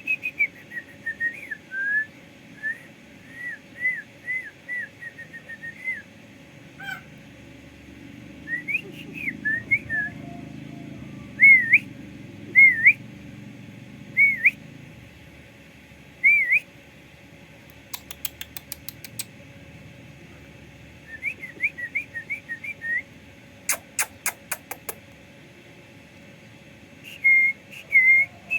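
Javan myna whistling: runs of short, clear notes, some sliding upward, in bursts with gaps between. Twice a rapid run of sharp clicks breaks in.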